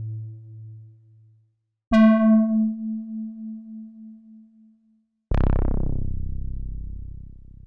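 Korg EX-800 synthesizer bass notes played one at a time: a low note dying away, a plucked-sounding note a second higher in pitch about 2 s in that decays over a few seconds, then a buzzier, fuller bass hit about 5 s in that slowly fades.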